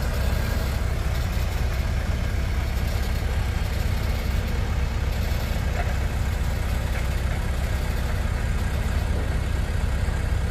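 Skid-steer loader's engine idling steadily, a low rumble that holds an even speed.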